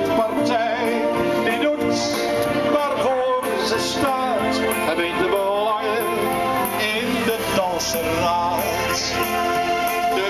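A song: a voice singing over instrumental accompaniment with sustained notes.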